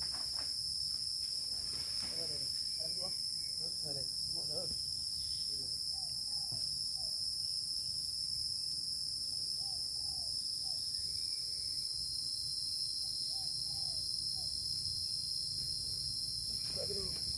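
Steady, shrill chorus of insects, crickets or cicadas, droning without a break. Faint short sounds come and go lower down.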